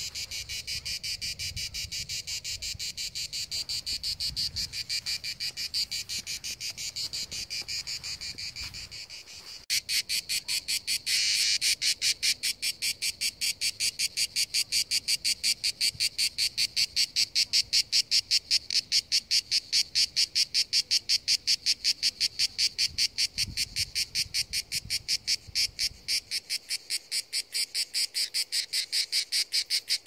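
Cicadas singing in a steady pulsing chant, several evenly spaced pulses a second. It grows louder about a third of the way in.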